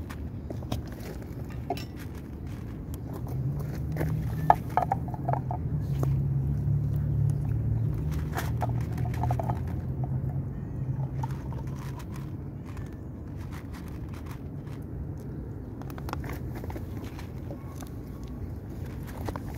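Kitten eating from a plate on gravel: scattered small clicks and crunches throughout. A low hum swells from about three seconds in and dies away near the middle.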